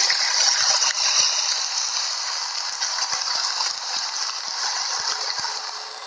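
Ambience sound effect playing from a white-noise app: a steady hiss with many small, irregular clicks and crackles through it, easing off slightly near the end.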